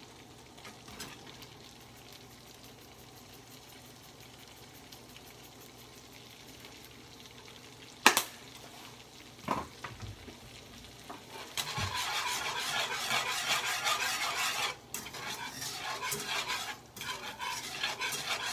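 Butter with garlic cloves and parsley sizzling quietly in a frying pan, with a sharp clink about 8 s in. For the last third, a wire whisk scrapes and stirs briskly through the sizzling butter, much louder, with a couple of short pauses.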